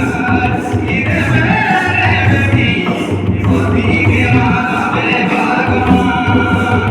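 Indian folk song practice: a singer's voice carrying a wavering, gliding melody over instrumental accompaniment with a repeating low beat.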